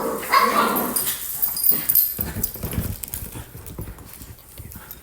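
Dogs at play: a dog's brief vocal sound in the first second, then a quick run of low thuds about two seconds in, like paws scrambling on the floor while fetching a toy.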